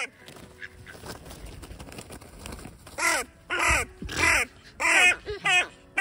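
Hooded crows cawing: a run of about six loud, harsh caws starting about halfway through, coming in quick succession.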